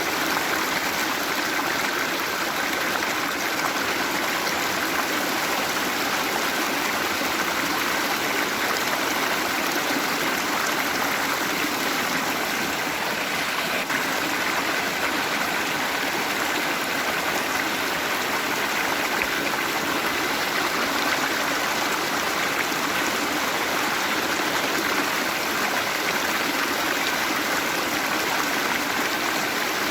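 Waterfall: water pouring and splashing in a steady, even rush.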